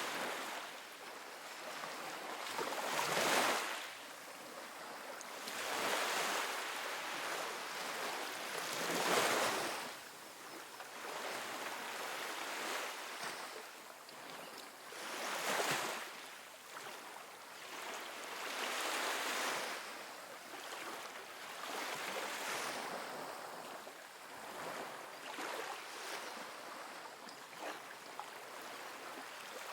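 Small ocean waves breaking and washing up a sandy beach, a soft hiss of surf that swells every few seconds as each wave comes in.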